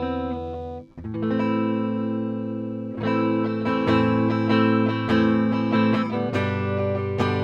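Burny LG480 Les Paul-style electric guitar played on its neck pickup: ringing chords that cut out briefly just before a second in, with fresh chords struck about one, three and six seconds in.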